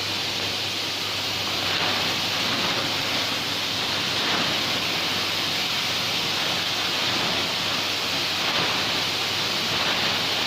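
Tarpaulin seaming machine running: a steady hiss with a low hum underneath.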